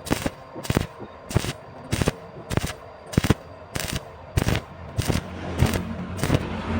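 Welding arc in short, evenly spaced crackling bursts, about one and a half a second, as when welding square tube in stitches. A low steady hum comes up in the last second or two.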